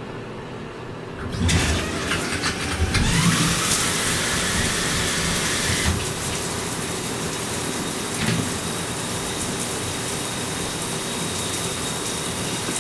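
Water running from the bathtub tap into the tub to rinse it out, starting about a second and a half in as a steady hiss, with a rising whine for a few seconds after it comes on.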